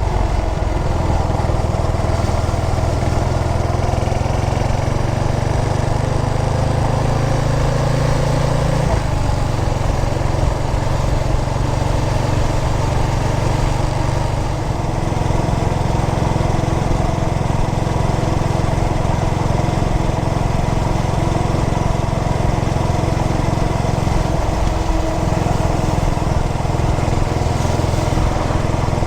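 2003 Yamaha SR400's carbureted air-cooled 400 cc single-cylinder engine running steadily, with a brief shift in engine pitch about nine seconds in.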